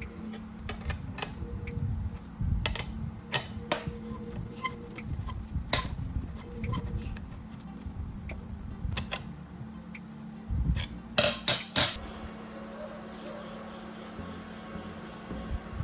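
Metal parts being handled: light, irregular clinks and knocks, then three sharp, loud clacks about three-quarters of the way through, over a steady low hum.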